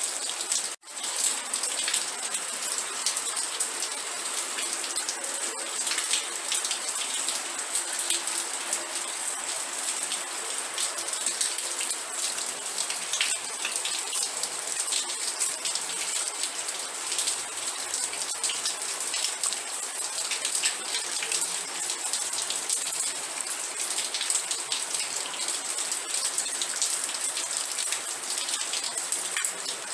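Steady heavy rain, with many individual drops striking close by amid a dense hiss. The sound cuts out for an instant about a second in.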